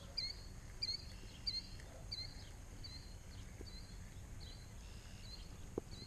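A bird calling faintly and repeatedly, a short high chirp about three times every two seconds, over low outdoor background noise.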